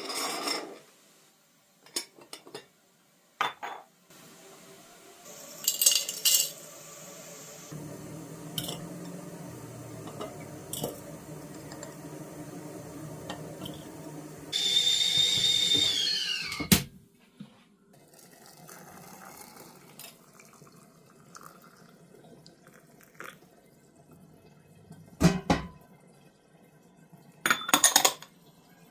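Kitchen crockery and cutlery clinking and knocking, with water being poured. About halfway through there is a short high tone that drops in pitch as it cuts off.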